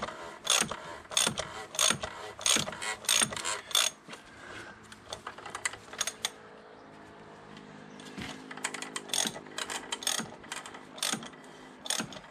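Hand ratchet wrench clicking in runs of strokes as the oil filter housing cap is wound down until it seats. There is a pause of a few seconds in the middle before the clicking resumes.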